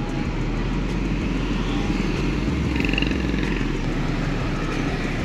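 Steady street traffic noise, with motorbikes and cars going by.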